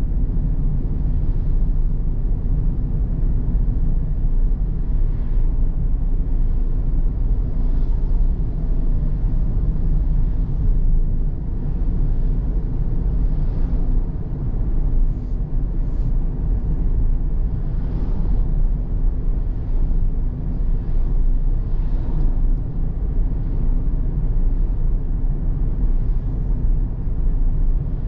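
Steady low rumble of a car driving on the road, the engine and tyre noise holding level throughout.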